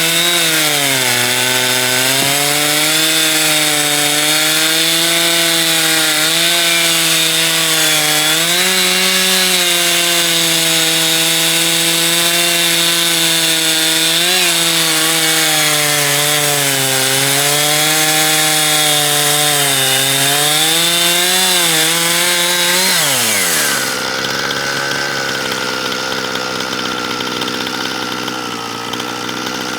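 Chainsaw on an Alaskan chainsaw mill running at high revs under load while ripping a log, its pitch wavering as the load changes. About 23 seconds in the throttle is released and the engine falls to a lower, steady idle.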